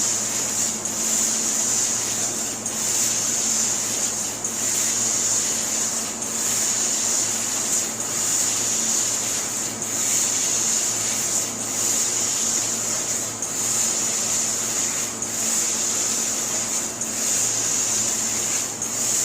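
Laser cutting machine cutting a jali pattern in 1.6 mm stainless steel sheet: a steady high hiss over a low hum, dipping briefly about every two seconds.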